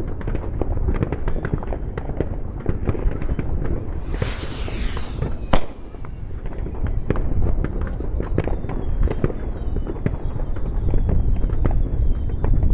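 Many fireworks and firecrackers going off at once, a constant crackle of bangs. About four seconds in comes a loud burst with falling whistles, then a single sharp bang. Faint falling whistles return near the end.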